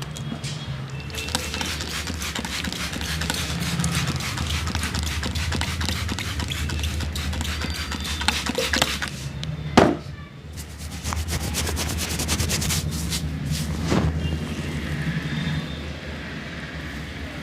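Barber's hands working a customer's head in a massage: quick, dense rubbing and tapping strokes, broken by a sharp slap about ten seconds in and another a few seconds later.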